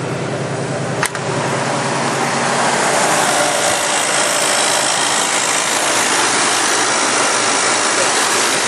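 Oldsmobile 307 V8 of a 1985 Buick Riviera idling just after a cold start, with one sharp knock about a second in. From about three seconds in the engine is heard up close, with a loud hissing buzz that comes from the carburetor.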